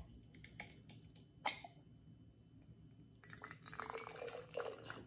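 Hand sanitizer mixture of rubbing alcohol and aloe vera gel being squeezed from a turkey baster into a small travel bottle. A faint click or two come first, then from about three seconds in a run of faint, uneven squirting sounds as the liquid goes in.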